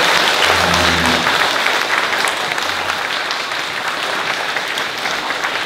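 School assembly audience of children and adults clapping together: sustained applause for a class of award winners, easing off slightly toward the end.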